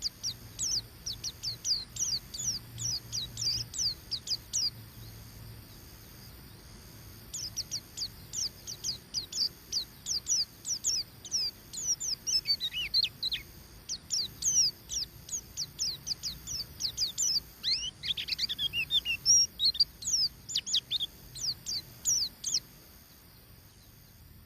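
White-eye (pleci) chirping in the rapid 'ngeriwik' style: long runs of high, quick, downward-sliding chirps, several a second, broken by a pause of about two seconds some five seconds in. Tangled, lower twittering phrases come twice in the middle, and the chirping stops shortly before the end.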